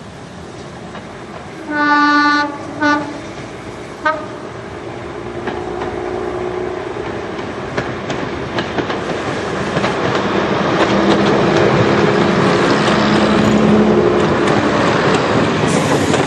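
Green diesel multiple unit sounding its horn, one blast about two seconds in, a short second blast just after and a brief third near four seconds, then running closer with its engines droning and its wheels clicking over rail joints, growing louder as it passes.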